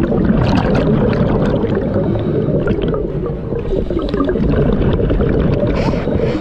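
Air bubbling and gurgling underwater, heard close up: a continuous rush of bubbles with many small pops.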